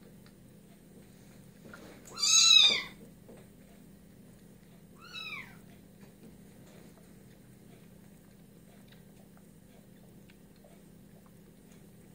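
Very young kitten meowing twice while being bottle-fed: one loud, high-pitched mew about two seconds in, rising then falling in pitch, and a shorter, fainter mew a few seconds later.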